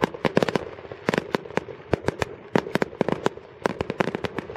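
Fireworks going off: a rapid, irregular run of sharp bangs and pops, several a second.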